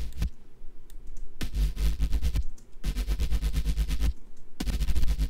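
Bass house synth bass loop playing back: a buzzing, fast-modulated bass with a deep sub-bass, in phrases of about a second separated by short gaps. The loop starts again about one and a half seconds in, after a brief pause.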